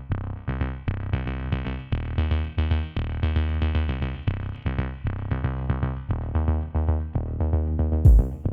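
Electronic background music: a rhythmic synthesizer line of short repeated notes over a bass, with a drum-machine beat coming in near the end.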